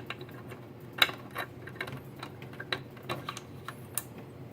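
Scattered small clicks and clacks of hands handling test gear as a 10-watt plug-in element is seated in an RF wattmeter, the sharpest about a second in and near the end, over a faint steady hum.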